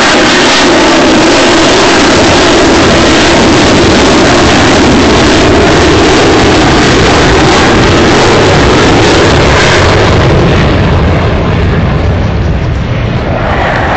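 Jet fighter passing overhead, the engine roar very loud and steady, then fading and losing its high hiss over the last few seconds as it moves away.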